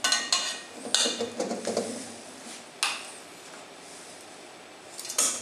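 A metal spoon clinking and scraping against a stainless-steel mixing bowl and steel cooking rings while grated potato mixture is spooned out: four sharp clinks with a brief metallic ring, the last near the end.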